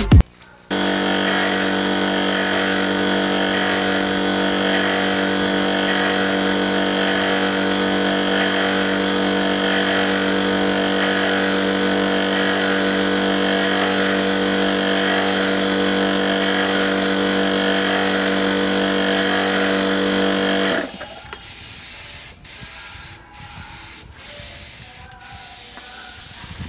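Air compressor running with a steady hum under the hiss of a siphon-feed spray gun spraying finish. About twenty seconds in the compressor cuts out, and the spray gun then hisses in short bursts as the trigger is pulled and released.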